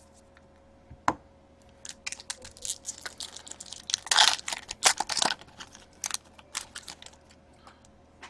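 Trading cards and their packaging being handled: a sharp click about a second in, then a busy run of clicks, taps and crinkling, densest around the middle.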